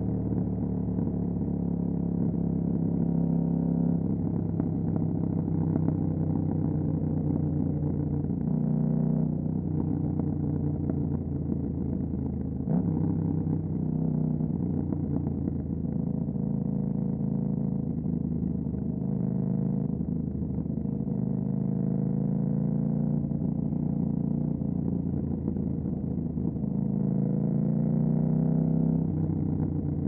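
2018 KTM 790 Duke's parallel-twin engine running through an Austin Racing RS22 exhaust while riding, its pitch stepping up and down several times with gear changes and throttle. There is one sharp click about halfway through.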